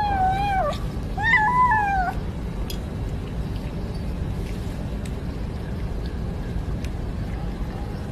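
A kitten meows twice in quick succession, each call rising then falling. After that there is only a steady low background rumble.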